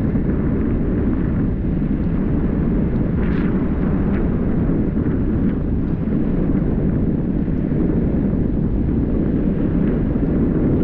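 Steady low rumble of a vehicle driving along a street, with wind buffeting the microphone.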